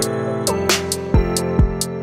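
Background music: sustained held notes over a steady drum beat of about two strikes a second.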